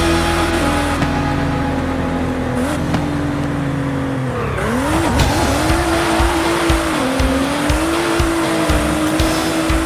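Small electric motor of a remote-control off-road toy car whining. Its pitch dips sharply about halfway through as it slows under load, then picks back up. Irregular low knocks run through the second half.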